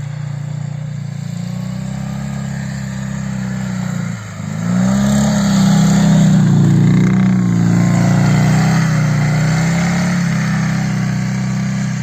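Flat-twin motorcycle engine running under throttle. About four seconds in it briefly drops off, then revs up louder and holds high revs, rising and falling slightly.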